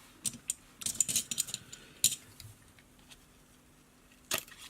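Light clicks and short metallic rustles of fly-tying materials and tools being handled at the bench: a thick bunch of Flashabou tinsel strands being handled, with a few sharp ticks, a cluster about a second in and another near the end.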